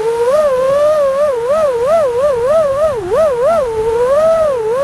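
Brushless motors and propellers of a 5-inch FPV racing quadcopter (iFlight Xing Pro 1800kv motors, HQ J37 props) whining in flight, the pitch rising and falling quickly over and over as the throttle is worked.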